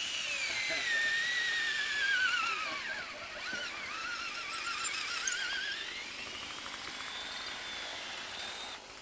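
Power drill whining at high speed, slowing and wavering as it bites into the material, then speeding back up as the load comes off, and stopping near the end.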